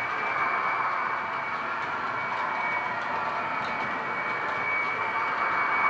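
Model locomotive sound decoder playing the engine sound of a DR class 120 'Taigatrommel' Soviet-built diesel, a steady even drone through the model's small speaker, with a thin high whine held throughout.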